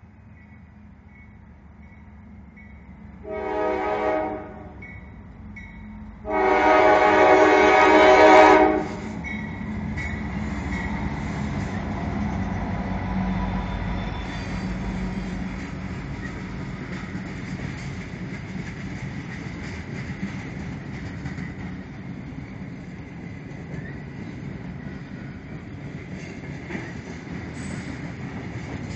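Railroad crossing bell dinging steadily. A freight locomotive's air horn then sounds a short blast and, about two seconds later, a longer, louder one. The train then passes close by, with locomotive rumble and the steady rattle and clatter of tank cars rolling over the rails.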